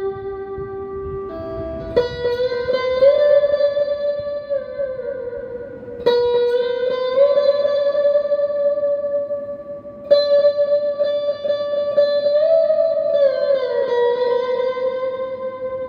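Givson Monalisa-B Hawaiian lap steel guitar played with a steel bar: a slow melody of long held notes, freshly plucked about two, six and ten seconds in, with the bar sliding the pitch smoothly up and down between them.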